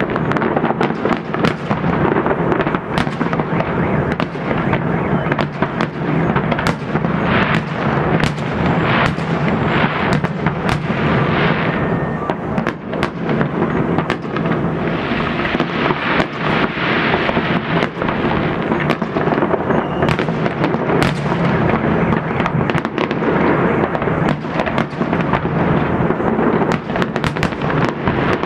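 Festive fireworks salute bursting in rapid, overlapping volleys: continual sharp cracks and bangs over a heavy rumble, with no let-up.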